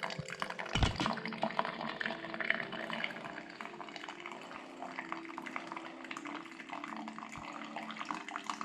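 Mr. Coffee single-serve iced coffee maker brewing, with coffee dripping and trickling into the cup as many small irregular drips. There is one low thump about a second in.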